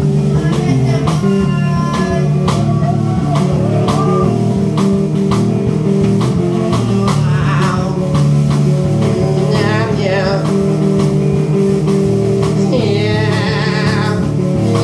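Live rock band playing: electric guitar chords over a drum kit keeping a steady beat, with a male voice singing short phrases now and then.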